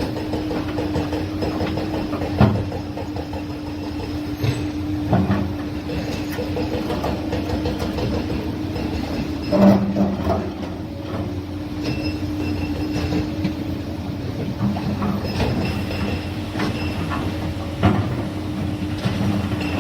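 Large excavator working: its diesel engine runs steadily under a constant whine, with a few sharp knocks and clanks now and then, the loudest about halfway through.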